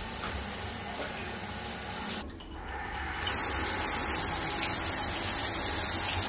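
Shower running: a steady hiss of spraying water that starts about three seconds in, after a quieter rubbing noise.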